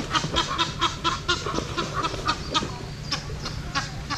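A duck hooked on a fishing line calling in quick repeated calls, about four a second.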